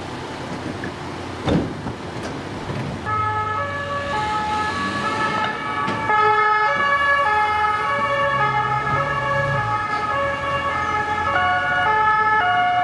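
Two-tone sirens of a police van convoy, starting about three seconds in. Each siren steps back and forth between two pitches, and several sound over one another, with engines running underneath. A single sharp bang about a second and a half in.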